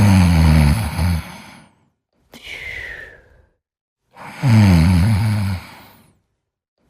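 Loud snoring: two long snores on the in-breath, one at the start and one about four seconds in, each dropping slightly in pitch. Each is followed by a quieter out-breath carrying a thin whistle that falls in pitch.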